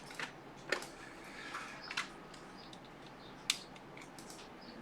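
A few light, sharp clicks and taps, three in all with the last the loudest, from small objects being handled on a workbench.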